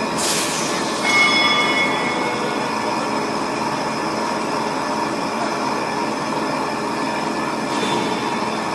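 XH7145/VMC650 CNC vertical machining center running, a steady mechanical noise with whining tones that rise in level about a second in and then settle. A short hiss comes near the start.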